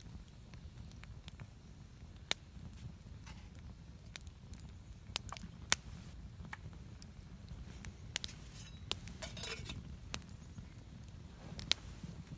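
Split-wood campfire crackling, with sharp irregular pops a second or more apart over a low steady rumble, and a short hiss about nine seconds in.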